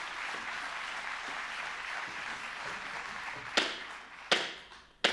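Audience applause dying away, then three sharp cracks of wooden threshing flails striking the stage floor, evenly spaced a little under a second apart.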